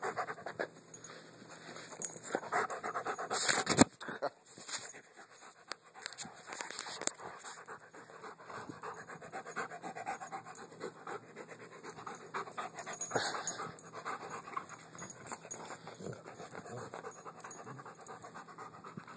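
Dog panting hard and fast, close up, in quick rhythmic breaths. There is a brief louder burst of noise about three and a half seconds in.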